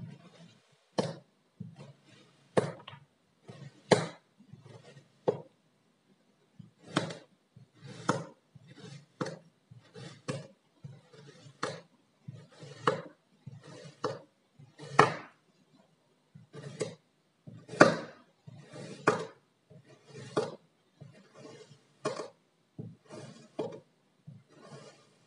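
Kitchen knife slicing down through moulded kinetic sand, a string of short, sharp cuts about one a second at an uneven pace, some coming in quick pairs.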